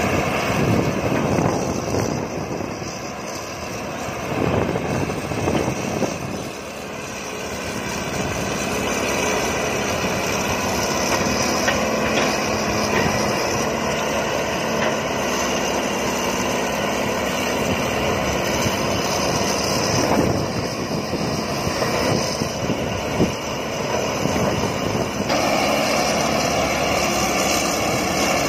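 Diesel engines of several hydraulic excavators, a Hitachi wheeled excavator among them, running steadily under load as they dig mud and load dump trucks. A few sharp knocks stand out, about a third of the way in and again near two-thirds.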